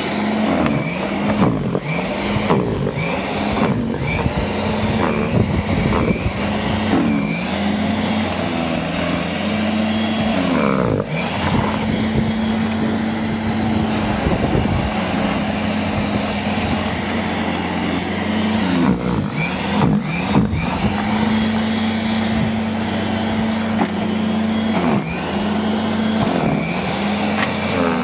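Ryobi electric snow shovel running, its motor and rubber paddle rotor whirring steadily as it throws snow. The pitch sags briefly every second or two as the paddle bites into snow, then recovers.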